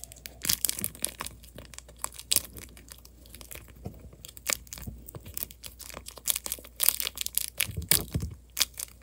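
Homemade paper dimple fidget being pressed, its clear plastic bubbles crinkling and clicking under the fingers in irregular sharp crackles, with a denser cluster near the end.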